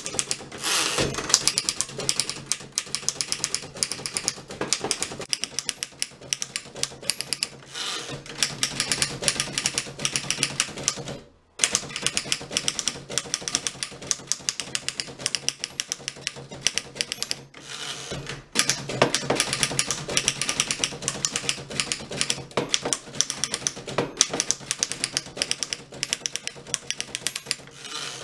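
1915 Fox No.24 manual typewriter being typed on quickly, a rapid run of keystroke clacks. The typing breaks off briefly twice, about a third and about two-thirds of the way through.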